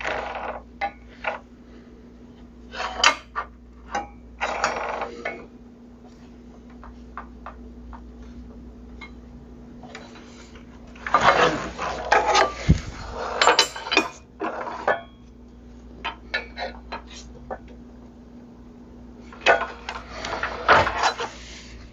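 Scattered knocks, clicks and clatter of wood offcuts and tools being handled and set down on a workbench, in a few short clusters with quieter gaps, over a faint steady hum.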